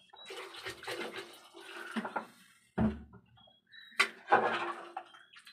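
A metal ladle stirring watery curry gravy in a metal pot, the liquid sloshing and swishing, with a few sharp clanks of the ladle against the pot about three and four seconds in.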